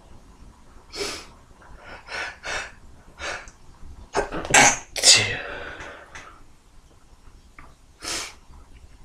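A man stifling a series of sneezes: short, held-in bursts of breath, one after another. The loudest two come in quick succession about four to five seconds in, and one more comes near the end.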